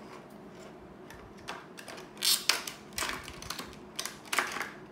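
Small scissors cutting through a stiff clear plastic blister pack: several sharp snips and crackles of the plastic, the loudest about two seconds in and more near the end.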